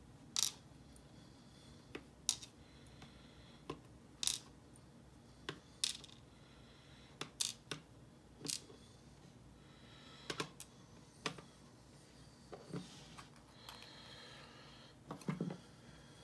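Small metal lock parts clicking and tapping as a pin tumbler lock is taken apart: a string of irregular sharp clicks, roughly one a second.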